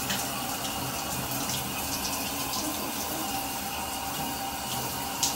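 Shower running: a steady spray of water falling in a shower stall, with a sharper click just before the end.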